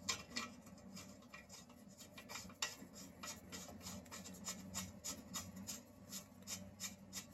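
Faint, irregular small metallic clicks and scraping as a nut is threaded by hand onto a coilover strut bolt.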